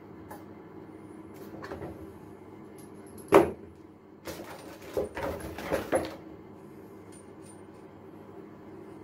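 A cardboard box and the packed parts of a new chrome basin mixer tap being handled: a sharp knock about three seconds in, then a short run of rustling and knocks as the chrome tap body is lifted out.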